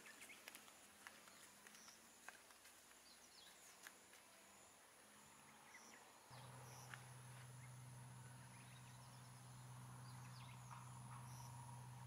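Near silence: faint outdoor ambience with scattered soft clicks and a few faint chirps, joined about six seconds in by a steady low hum.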